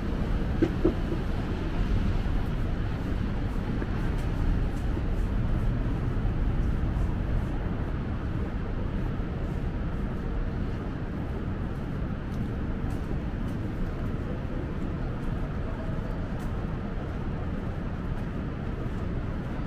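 Steady low rumble of city street traffic, slightly louder in the first half, with faint light clicks throughout.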